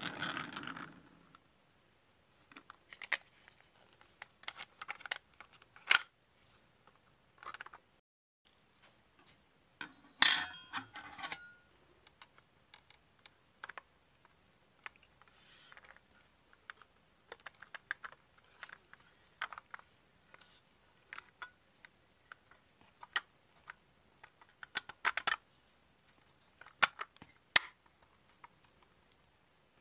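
Small metal and plastic parts and hand tools handled on a worktable: scattered irregular clicks and taps, with a louder stretch of scraping about ten seconds in.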